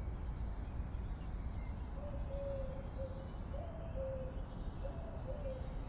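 Soft, low cooing of a dove, in repeated short notes that begin about two seconds in, over a steady low outdoor rumble.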